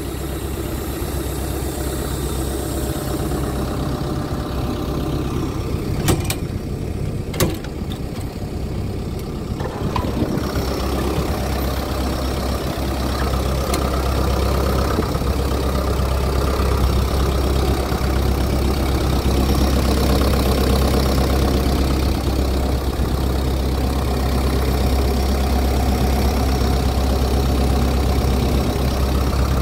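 Hyundai Robex 140LC-7A excavator's turbocharged Mitsubishi diesel engine idling steadily, getting louder from about ten seconds in. Two sharp clicks come about six and seven seconds in.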